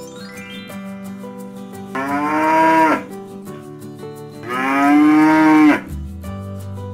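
Cattle mooing twice, two long calls each rising and then falling in pitch, the second one louder and longer, over background music.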